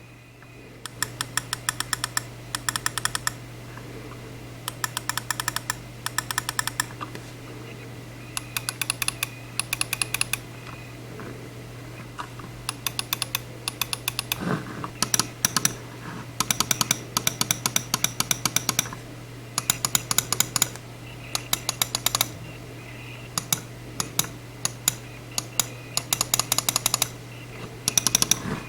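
Logitech G305 wireless gaming mouse clicking in quick runs of rapid clicks, each run about a second long, over a low steady hum.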